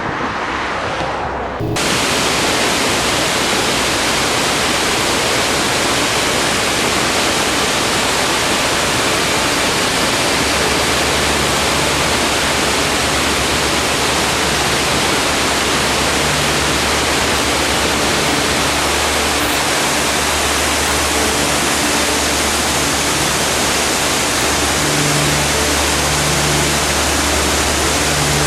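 Waterfall rushing, a loud steady wash of falling water that cuts in sharply about two seconds in, after a brief stretch of music.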